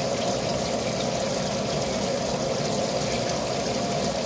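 Kitchen faucet's spray head running steadily, water pouring over a block of ice and splashing into a stainless steel sink.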